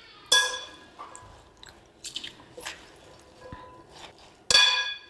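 Salad being tossed with a serving spoon and fork in a glass mixing bowl: spinach leaves and shredded vegetables rustle and crunch, and the utensils clink against the glass with a short ringing tone, the loudest clinks about a third of a second in and near the end.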